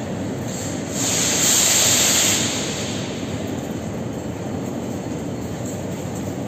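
An 81-717-family metro train running on the track, a steady rumble of wheels and running gear. About a second in, a louder hiss rises over the rumble and fades after about a second and a half.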